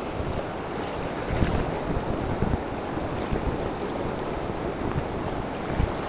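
Fast-flowing river water rushing steadily, with wind buffeting the microphone in uneven low thumps.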